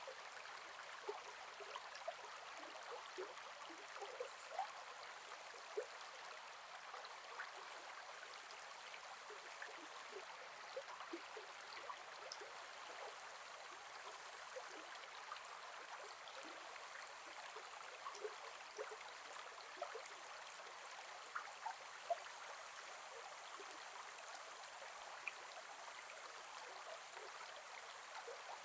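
A gentle forest river flowing and babbling steadily, with many small water plinks and gurgles scattered throughout.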